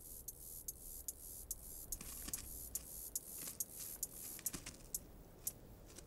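Light, irregular ticking and scratching of a Sinai agama's claws on sandstone rock as it scuttles along, about three or four ticks a second.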